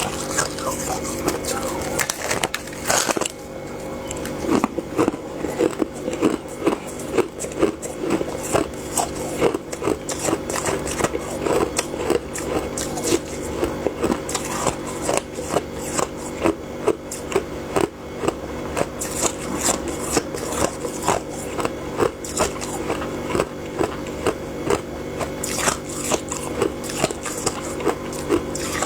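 Close-miked biting and chewing of fluffy freezer frost: repeated crisp crunches, about one a second, over a steady low hum.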